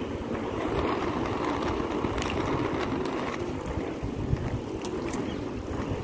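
Wheels of Oxelo MF500 inline skates rolling steadily on asphalt, a continuous rolling roar, with wind buffeting the microphone in gusts. A few light clicks come in about two and five seconds in.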